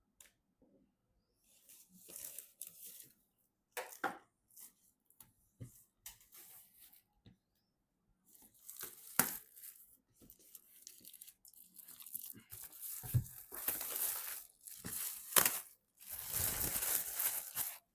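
Packaging being handled and torn open: crinkling and tearing with a few sharp clicks, ending in a longer tear of about two seconds.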